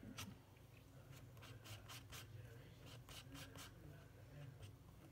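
Palette knife scraping and dabbing oil paint on a palette in short, faint strokes, several in quick succession around the middle.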